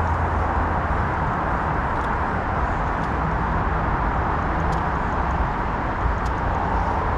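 Steady outdoor background noise: an even rushing hiss over a low rumble, with a few faint ticks.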